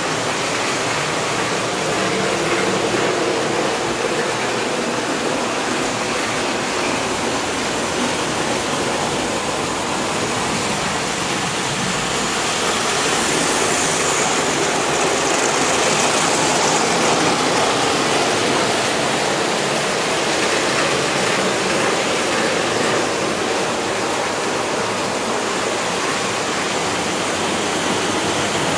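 S-gauge model trains, a freight and an AFL Silver Flash passenger train, running on metal track: a steady rolling noise of wheels on rail, rising slightly about halfway through.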